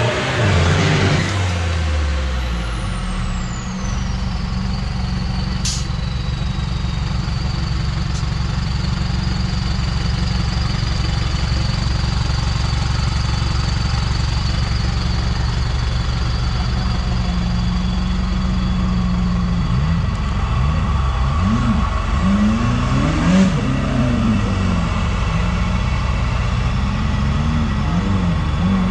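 Diesel engine of a stuck 4x4 pickup running steadily under load, blowing black smoke as it tries to drive out of a deep mud hole, then revving up and down repeatedly from about 20 seconds in.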